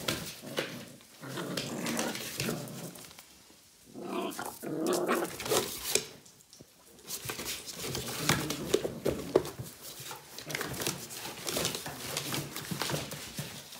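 Puppies growling in play as they wrestle in and around a cardboard box, with scratching and crumpling of the cardboard under their paws. The growls come in stretches, with brief lulls about three and a half and about six and a half seconds in.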